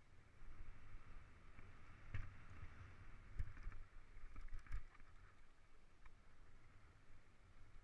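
Mountain bike rolling over dry, rocky dirt singletrack, picked up by a camera riding on the bike or rider: steady tyre and wind rumble with a hiss, broken by scattered knocks and rattles as the bike hits bumps and rocks, the sharpest about two, three and a half and nearly five seconds in.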